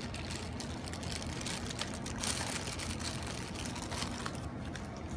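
Light clicks and rustling from small transmission filter parts being handled, over a steady low hum.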